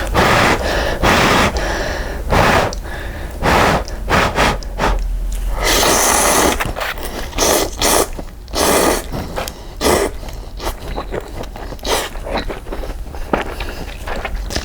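Close-miked slurping of instant cup ramen noodles: a run of loud, airy slurps with chewing between them, one longer slurp about six seconds in.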